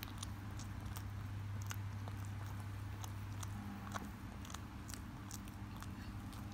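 Mother cat licking and chewing at her newborn kitten, cleaning the birth membrane off: irregular wet clicks and smacks from her tongue and mouth. A steady low hum runs underneath, and a second steady tone joins about halfway through.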